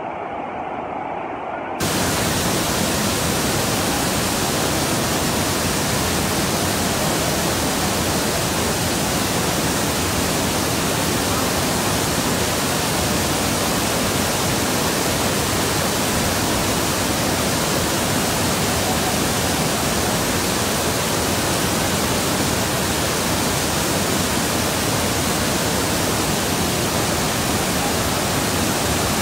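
Muddy floodwater of a river swollen by heavy rain rushing through rapids: a steady, even rush that jumps up sharply in loudness about two seconds in and then holds.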